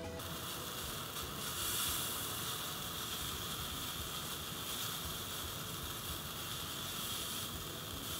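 A hot link sizzling over hot charcoal inside a small soda-can grill: a steady, even hiss.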